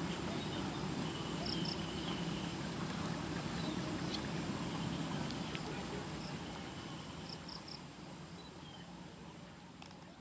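Field ambience with insects trilling steadily at a high pitch over a low hum, and a few short high chirps, twice in quick groups. The whole soundscape fades out over the second half.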